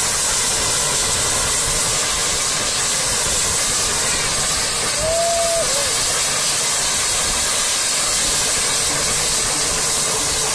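Steady loud rushing hiss of road and wind noise from travelling along a road at speed, with a short held tone a little after halfway.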